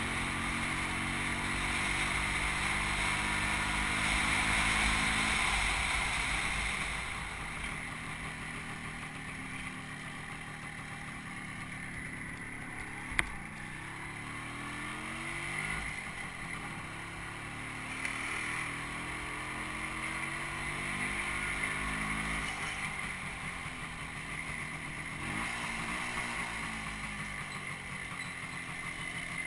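Small motorcycle engine running on the move, its pitch rising and falling with the throttle, over wind and road noise that is loudest in the first few seconds. A single sharp click sounds about halfway through.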